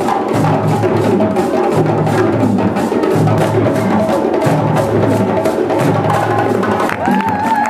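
Djembe drums and a balafon, the West African xylophone with gourd resonators, playing a fast, dense percussion rhythm together.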